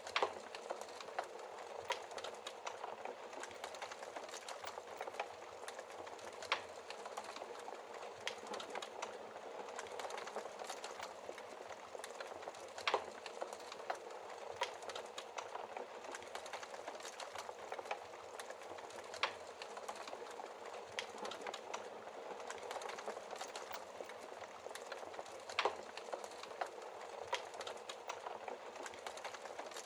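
Wood fire burning in a fireplace: a steady soft hiss of flames with frequent irregular crackles and pops, a few sharper pops standing out every several seconds.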